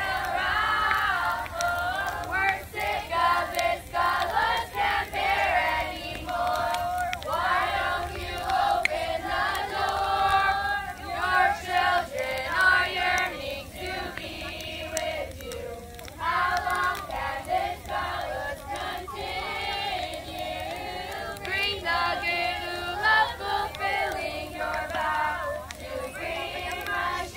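A large group of girls singing together in chorus, in phrases with short breaks between them.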